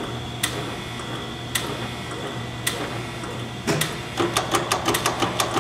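Chevalier FSG-3A818 surface grinder running on automatic feed: a steady hum from its motors with sharp mechanical clicks from the feed mechanism. The clicks come about once a second at first, then quicken to about four a second after roughly four seconds.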